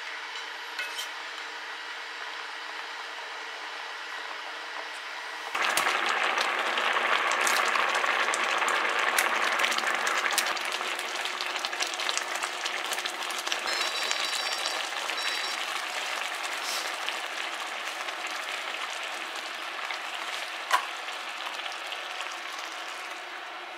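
Rice porridge simmering in a cast-iron pot while it is stirred with a wooden spoon; about five seconds in it turns much louder, a dense sizzling and bubbling as egg is stirred in, easing off gradually. A single sharp knock near the end.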